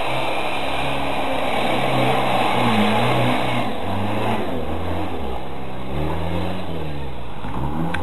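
Toyota off-road 4x4's engine revving hard in repeated bursts, its pitch rising and falling as the driver works the throttle through deep mud.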